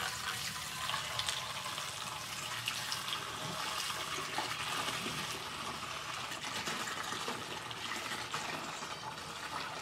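Vinegar pouring in a steady stream from a plastic half-gallon jug into the tank of a 2-gallon Smith Contractor pump sprayer.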